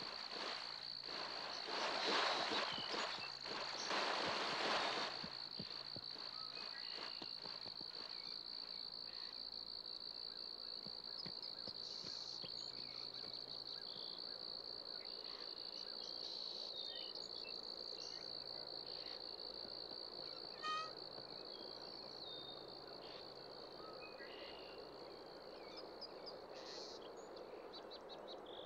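Steady high-pitched chorus of crickets or similar insects. During the first five seconds, loud bursts of splashing as deer run through shallow water; a short rattling call sounds once around the twenty-first second.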